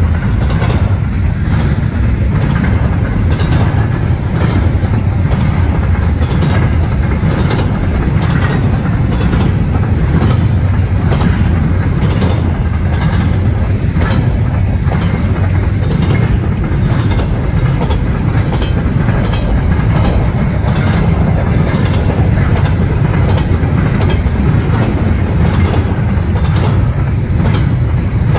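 Double-stack intermodal well cars rolling past at close range: a loud, steady noise of steel wheels on rail, with repeated clicks as the wheels cross the rail joints.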